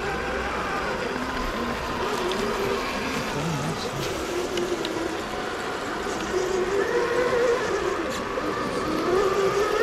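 Several small electric RC crawler trucks driving together, their motors and gearboxes whining at a few different pitches that rise and fall with the throttle as they climb; a little louder in the second half.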